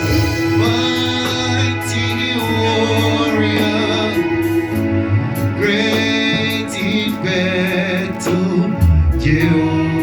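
Gospel worship music: singing with held, wavering notes over sustained instruments and a steady beat.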